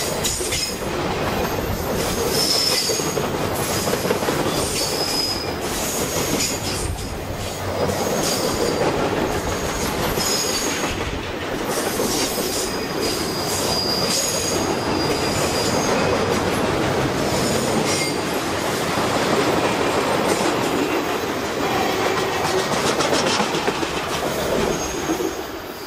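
Freight train cars rolling past, their wheels rumbling on the rails with high-pitched wheel squeal coming and going. The noise drops away near the end.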